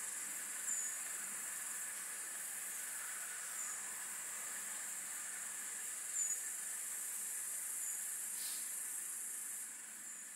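Quiet forest ambience: a steady high-pitched insect hiss, with a faint short high chirp every couple of seconds. It fades away near the end.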